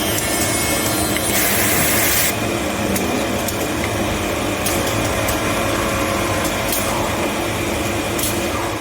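Robotic knife-handle drilling and slotting machine running with a steady mechanical hum. A loud hiss lasts about a second starting about a second and a half in, and there are scattered sharp clicks.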